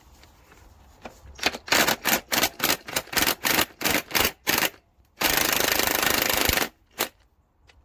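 Impact wrench hammering on a tight bolt: a string of short rattling bursts, then one longer run of about a second and a half. The bolt is tight and may have picked up a thread.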